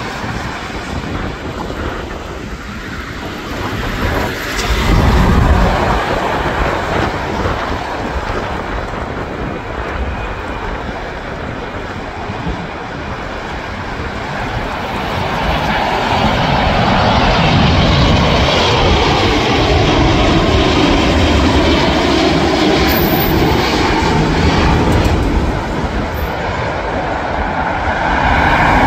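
Jet engines of a Boeing 787-9 airliner on final approach, a continuous rumble and whine. It swells louder in the second half, where a tone in it dips and rises in pitch as the aircraft passes. A brief, louder low rumble comes about five seconds in.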